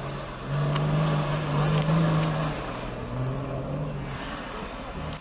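An off-road 4x4 vehicle's engine running under load, its revs surging for about two seconds, easing off, then rising briefly again.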